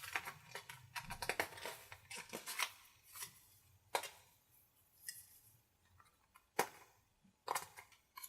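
A series of sharp clicks and knocks from hand work on plastic parts: close together over a low hum in the first few seconds, then single louder knocks every second or so.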